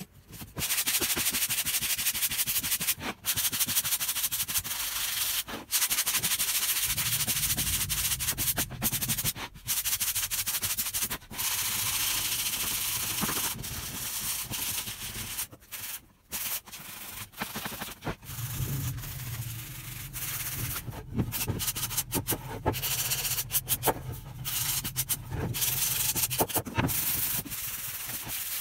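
150-grit sandpaper on a sanding block rubbed by hand back and forth over a freshly painted wooden cabinet door, a rasping scrape in quick strokes with short breaks between them, wearing through the green top coat to the white base coat to distress it. A low hum sits under part of it.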